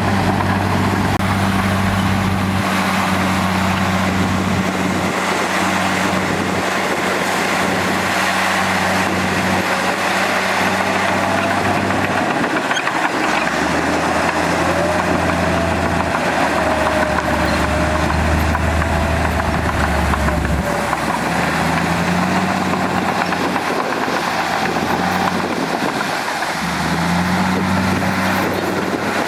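Heavy diesel earthmoving machinery running steadily. The engine note shifts to a new pitch a few times as the revs change, and a faint wavering whine sits over it in the middle.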